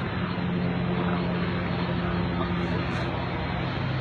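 Steady low engine hum over a wash of noise, level throughout.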